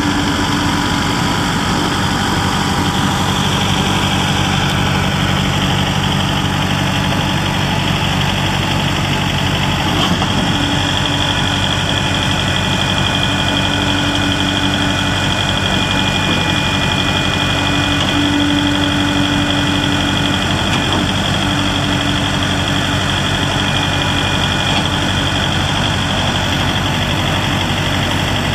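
Kubota L4701 tractor's four-cylinder diesel engine idling steadily, with a faint click about ten seconds in.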